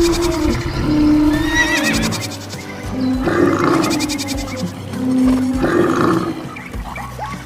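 A string of animal calls over music: several short held cries in the first two seconds and again about five seconds in, and two rougher, noisier calls about three and six seconds in.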